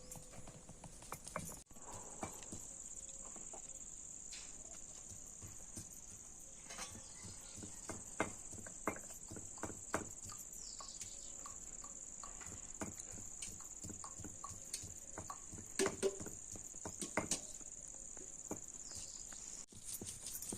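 Crickets chirring steadily in a continuous high-pitched drone, with scattered light knocks and clicks over it.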